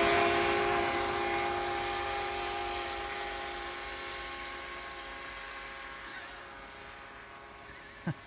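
Snowmobile engine running at a steady pitch as the machine drives away across the snow, fading steadily into the distance. A short sharp sound near the end.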